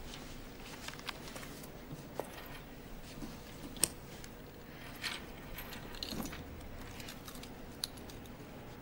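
Quiet rustling of sheets of paper being gathered up, with a few sharp light clicks and taps in between.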